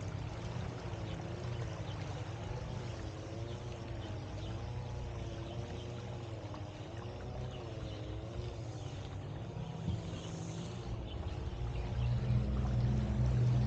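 Small electric tour boat under way, its motor giving a steady low hum with a faint wavering whine above it; the hum grows louder near the end.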